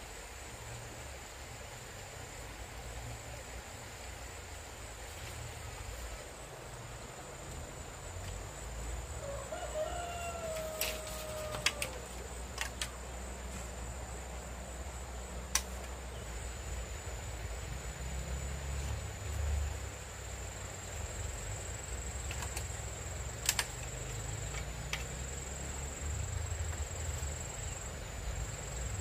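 A rooster crows once, about ten seconds in, a call of two to three seconds that drops in pitch at the end. Under it run a steady high-pitched whine and a low rumble, and a few sharp knocks come scattered through.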